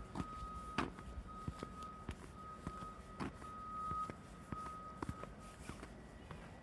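Footsteps at a steady walking pace, about two a second, under a steady high electronic beeping tone that sounds in long stretches with short gaps and stops about five and a half seconds in.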